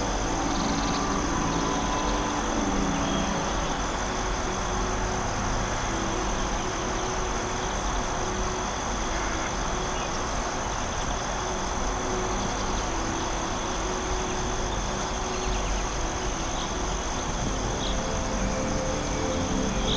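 Steady forest ambience: an even rushing noise under a continuous high insect trill, with soft low held tones that come and go.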